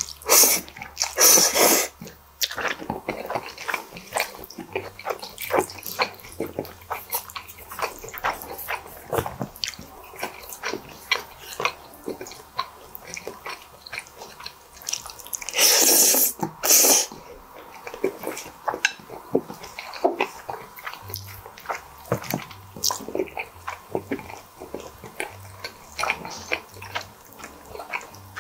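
A person slurping squid ink spaghetti noisily, twice: once right at the start and once about halfway. In between there is steady wet chewing and smacking.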